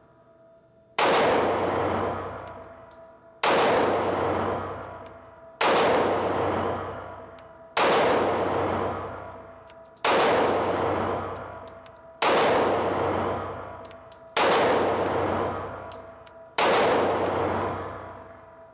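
Taurus G2c 9mm pistol fired eight times in slow, aimed fire, a shot about every two seconds. Each report dies away slowly with a long echoing tail.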